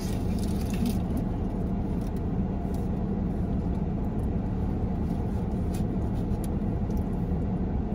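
Steady low hum and rumble of an idling car, heard from inside the cabin, with a few faint ticks.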